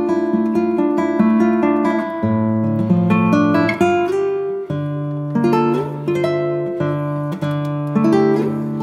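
Background music: acoustic guitar playing a run of plucked and strummed notes over changing bass notes.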